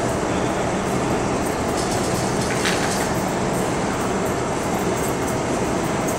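MTR Kwun Tong Line first-generation M-Train (cars A169/A164) running through an underground station platform without stopping, a steady train noise with wheels on rail and a brief higher sound a little past halfway.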